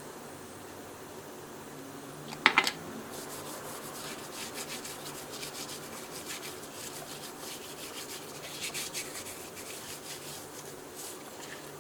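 A sharp clack, then a long run of quick rubbing and scraping strokes, with a faint steady hum underneath.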